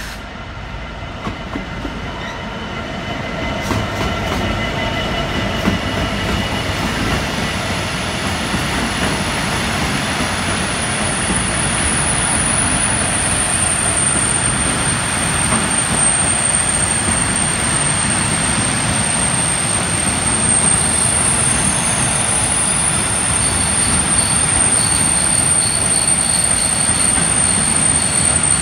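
Class 66 diesel-electric locomotive, with its two-stroke V12 diesel running, draws a train of loaded china clay hopper wagons slowly past, its rumble growing louder as it comes near. From about ten seconds in, a steady high-pitched squeal rises as the train brakes to a stop in the station.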